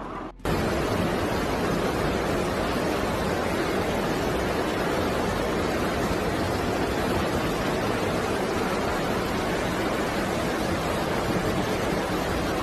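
Steady, even rush of water in a flash flood, starting abruptly about half a second in.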